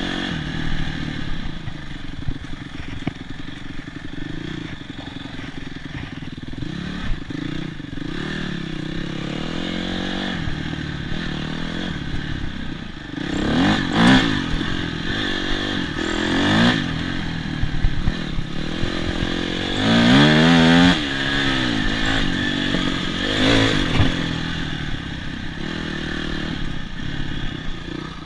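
Honda CRF250X dirt bike's single-cylinder four-stroke engine running under way, its revs rising and falling as the throttle is worked. It is revved up hard several times, loudest about halfway through and again about three-quarters through.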